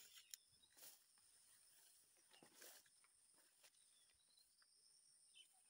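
Faint steady high-pitched insect drone, with soft rustling of grass and leaves as someone walks through the undergrowth, louder about one second in and again around two and a half seconds.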